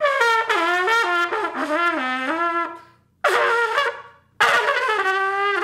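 Trumpet played solo: a run of about eight short notes stepping down in pitch with small slides between them, then after a short gap a brief blast, and near the end a long held note.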